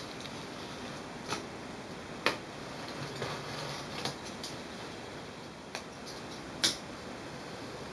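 A box cutter slicing along the packing tape on a cardboard box: a handful of sharp clicks and light scrapes as the blade runs and catches along the edge, over a steady background hiss.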